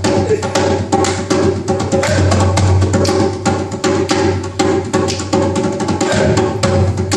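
Djembe hand drum playing a steady rhythm over a held backing chord, with no singing.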